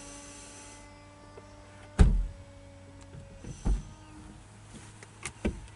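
Electric convertible soft-top roof closing: a steady motor whine from the roof mechanism, changing pitch partway through, with several clunks as the roof moves and latches, the loudest about two seconds in and more near four and five seconds.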